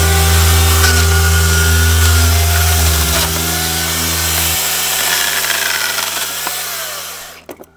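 Makita UC3541A corded electric chainsaw cutting through pallet wood, its motor whine dipping and rising as the chain bites under load. The saw winds down and stops near the end.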